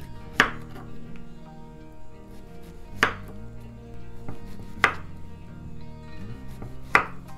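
Kitchen knife slicing a young zucchini into thin rounds, the blade striking a wooden cutting board four times, about two seconds apart, over soft background music.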